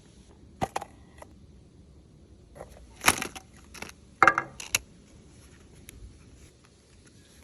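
Hands handling and opening a plastic toy capsule: a few sharp clicks and crinkling rustles, the loudest about three and four seconds in.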